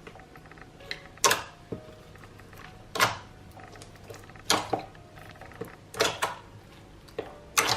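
Slime being squished and folded by hand, giving a squelching pop about every one and a half seconds, with faint background music.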